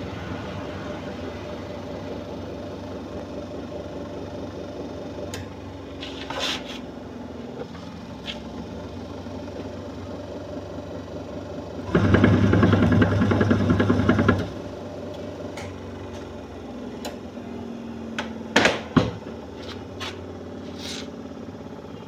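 Washing machine motor switched on and running with a loud, even hum for about two and a half seconds midway, then stopping. A few short clicks and knocks come before and after it.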